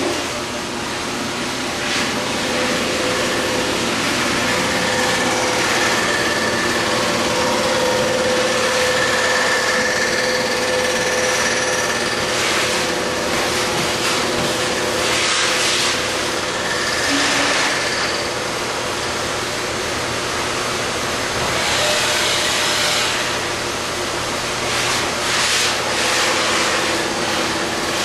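Rottler F68A CNC machining center milling the end rails of a small-block Chevy engine block: the spindle and cutter run steadily with a whine, and the cutting noise swells into louder, hissier stretches every few seconds as the cutter works across the rail.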